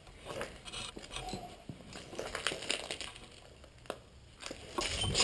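Footsteps and gear rustling, with irregular crunches and scrapes of boots on grit and broken rubble on concrete steps.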